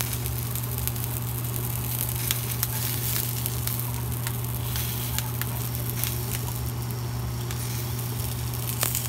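Tomatillos and chopped poblano pepper pieces sizzling in hot oil in a frying pan, with scattered sharp pops of spattering oil, over a steady low hum.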